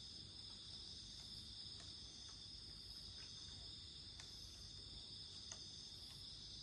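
Insects chirring steadily at night, with a few faint, scattered crackles from a wood campfire, the clearest about five and a half seconds in.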